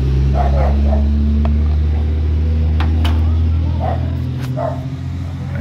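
A loud, steady low motor drone that swells in and eases off after about four seconds, with a dog barking a few times over it and a couple of sharp clicks in the middle.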